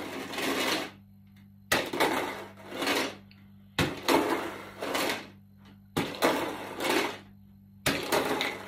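Plastic water bottle with dice inside being flipped onto carpet again and again, the dice rattling and shifting inside it. Each flip gives a sharp-starting rattle that dies away over about a second, about every two seconds.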